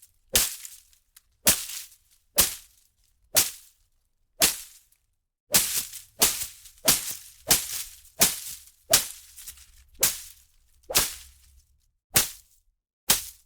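Leafy foliage and undergrowth being hit, a series of about fifteen sharp, swishing strikes, each with a short rustling tail. They come about one a second, closer together in the middle.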